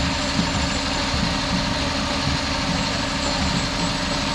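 Fire engine's diesel engine running at a low idle as the truck creeps along, a steady low rumble.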